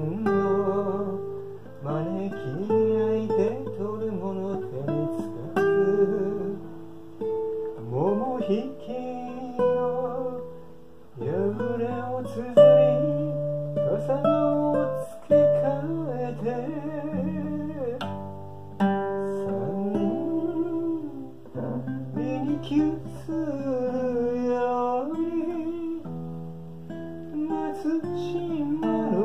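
Acoustic guitar music: a melody line over sustained bass notes, with a slow, flowing tempo.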